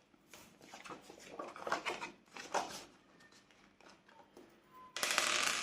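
Paper and plastic handling sounds: banknotes and binder pockets rustled and moved in short bits, then a louder rasp lasting about half a second near the end.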